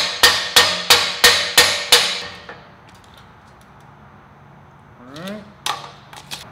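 Hammer striking the steel frame jig in even blows, about three a second with a metallic ring, stopping about two seconds in. A brief rising sound and a couple of light knocks follow near the end.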